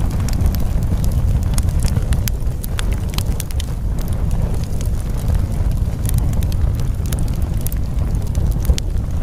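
Steady deep rumbling noise with many scattered sharp crackles and clicks over it.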